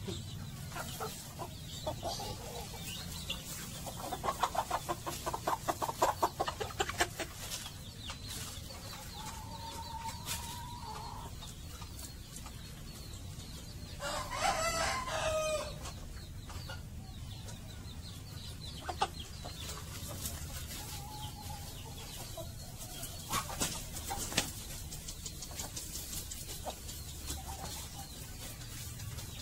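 Chickens clucking in short runs of calls, with one loud rooster crow about halfway through that lasts a second and a half, among scattered light knocks and rustling.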